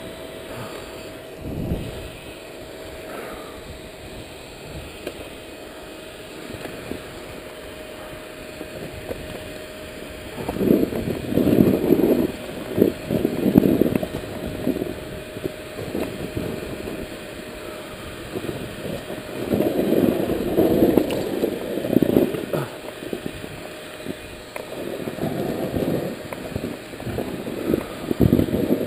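KTM dirt bike picking its way along a rocky singletrack at low engine speed, with a steady low running note. Three times the engine and ride noise swell into louder, choppy stretches.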